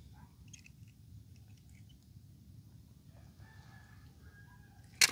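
A rooster crowing faintly, one drawn-out call starting about three and a half seconds in, over a low steady background rumble. Right at the end comes a sharp clatter of toy cars knocking in a plastic basket.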